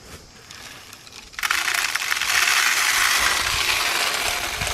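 Shelled corn pouring from a plastic container down into a PVC-pipe deer feeder. The kernels make a steady, dense rattling hiss that starts suddenly about a second and a half in.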